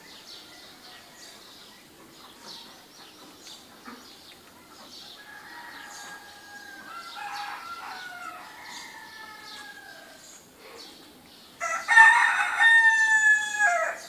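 Rooster crowing: a fainter crow about halfway through, then a loud cock-a-doodle-doo near the end, over light small-bird chirping.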